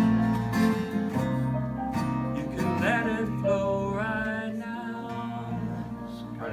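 Acoustic guitar playing sustained chords as song accompaniment. A man's voice sings drawn-out, wavering notes over it in the middle.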